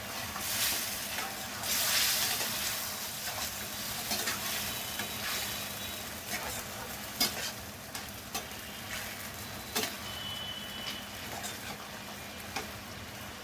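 Chicken curry frying and sizzling in a pot as it is stirred, with a spatula clicking against the pot now and then. The sizzle is strongest in the first couple of seconds.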